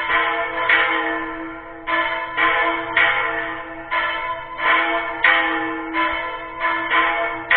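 A small church bell (campana menor) struck over and over, about a dozen strokes at an uneven pace, mostly under a second apart. Each stroke rings on into the next, so a steady hum of the bell carries underneath.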